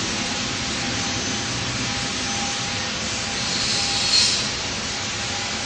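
Steady outdoor background noise, a hiss over a low rumble, that swells briefly about four seconds in.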